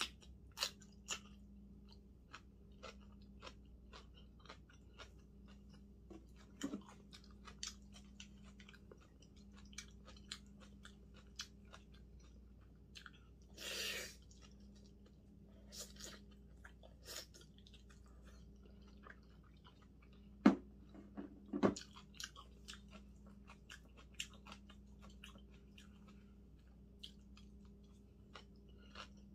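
Close-miked chewing and crunching of food, with crisp bites of fresh napa cabbage geotjeori (fresh kimchi) and soft mouthfuls of fried egg, over a faint steady hum. A short louder rush of noise comes about 14 seconds in, and sharp knocks stand out a little after 20 seconds.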